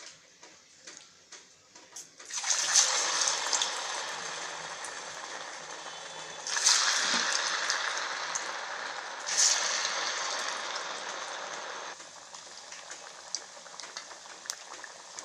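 Poha vadas (flattened-rice fritters) going into hot oil in a kadai, three times, each setting off a sudden loud sizzle that slowly fades. After the light crackling of the oil at the start, the sizzle settles to a quieter, steady deep-frying sizzle from about twelve seconds in.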